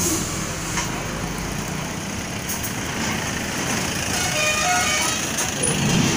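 Road traffic with trucks running along the road. Near the end a pickup truck passes close by, and its engine rumble and tyre noise grow louder.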